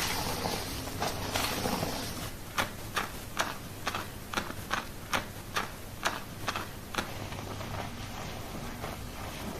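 Rustling scrubbing, then a run of about ten sharp taps, roughly two a second, that stop about seven seconds in: hand taps of a head-and-shoulder massage during a salon hair wash.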